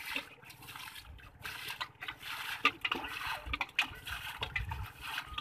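Shallow muddy water splashing and sloshing irregularly as hands and a metal bowl scoop and grope through it, with a few dull low thuds in the second half.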